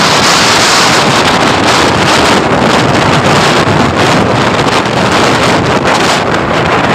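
Loud, steady wind rush buffeting a phone's microphone while riding a motorcycle in traffic.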